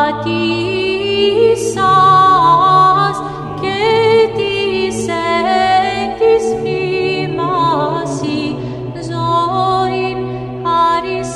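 Choir singing Orthodox Byzantine chant a cappella: an ornamented melody moving over a held low drone (the ison).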